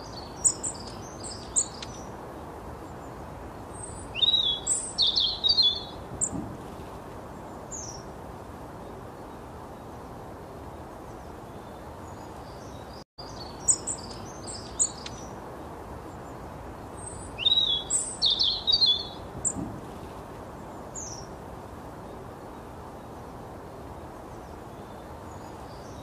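Small birds calling: scattered thin, high chirps and two bursts of rapid twittering over a steady outdoor hiss. After a brief dropout about halfway through, the same run of calls plays again.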